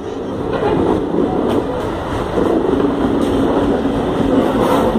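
Indian Railways WDG-3A diesel locomotive, with its ALCO-type 16-cylinder engine, running close by at a station platform.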